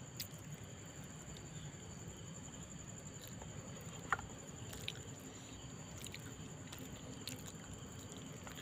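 Steady high chirring of night insects, with faint soft squishing and small clicks as a child mixes rice and dal by hand on a steel plate. One brief sharp tick stands out about four seconds in.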